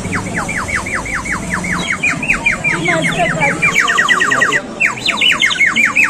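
Handmade terracotta bird-shaped water whistle being blown, warbling in a fast string of bird-like chirps, about five a second, quickening in the middle. It breaks off briefly near the end and starts again.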